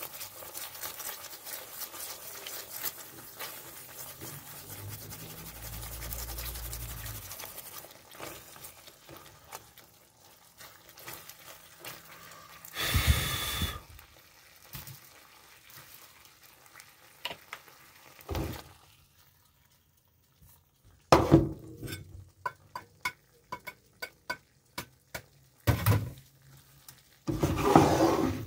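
Meatballs in thick tomato sauce simmering in a pan, with a steady sizzle for the first several seconds. After that come a few loud knocks of cookware, one about halfway through and more near the end, with a run of short sharp pops in between.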